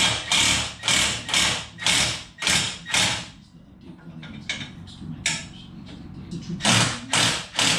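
Socket ratchet wrench working bolts in repeated clicking strokes, about two a second for the first three seconds, then a few scattered strokes and a quick run of three near the end. The push-plate mounting bolts are being backed off a couple of turns to give the plates some play.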